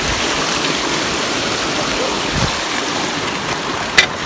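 Steady rush of a stream's running water, with a single sharp click near the end.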